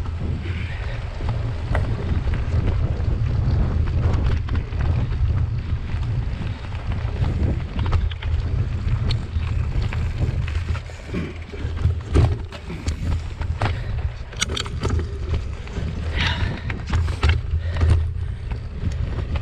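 Mountain bike riding a rough forest singletrack: a steady deep rumble of wind and trail vibration on the bike camera's microphone, broken by frequent knocks and rattles as the tyres and frame hit roots and rocks.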